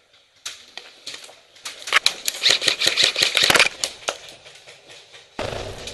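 Airsoft guns firing: scattered sharp cracks, then about two seconds in a dense rapid run of shots that is the loudest part, thinning out after. Near the end a sudden muffled rustle.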